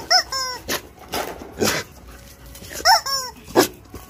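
Squeaky chicken toy squeaked in short, even squeaks: two at the start and two more about three seconds in. Dogs scuffle and snuffle in between.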